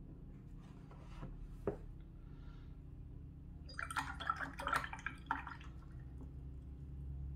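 A watercolour brush set down on a ceramic paint palette with a couple of light clicks, then about a second and a half of rapid light clicks and splashes from handling painting tools and water.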